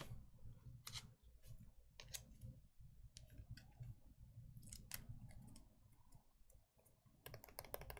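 Faint, scattered clicks and taps of trading cards being handled and set down, turning into a quick run of rapid clicks near the end.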